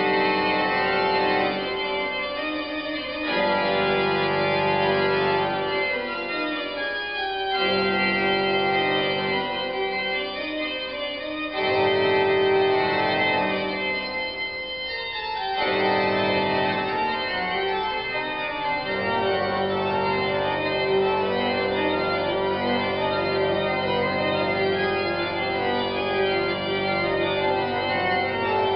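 Background organ music: slow, held chords that change every few seconds.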